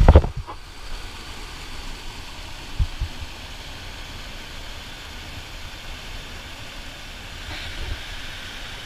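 Whitewater rushing over rock ledges in river rapids, heard close up as a steady, even wash of noise. A few short thumps near the start.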